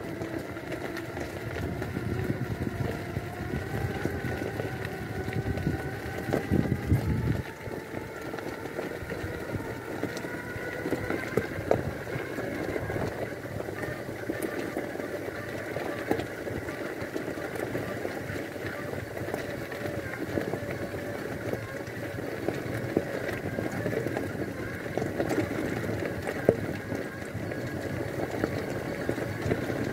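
Extreme X8 power wheelchair driving over a gravel road: its electric drive motors whine, the pitch rising and falling with speed, over the crunch and rattle of the tyres on loose stones.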